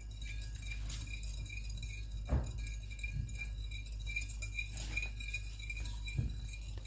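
A spoon clinking and scraping against a china bowl while stirring milk and sugar together, with two louder knocks against the bowl.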